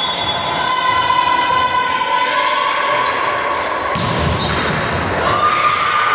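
Volleyball rally on an indoor court: the ball is struck several times, with a heavier hit about four seconds in, in a reverberant sports hall. A steady high tone runs underneath and steps up slightly about five seconds in.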